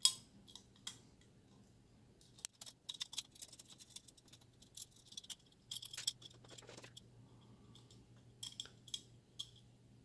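Two tight screws being worked out of the metal faceplate bracket of a PCI Express adapter card: scattered small metallic clicks, scrapes and clinks in short clusters, beginning with a sharp click. The screws are stubborn and hard to turn out.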